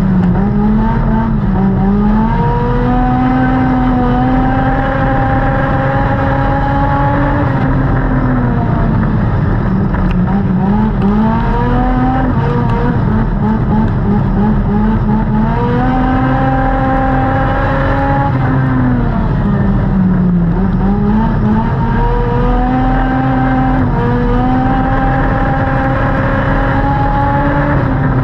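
Dirt-track race car's engine heard from inside the cockpit, running hard at racing speed. Its pitch climbs on the straights and drops off into each turn, over and over as the car laps.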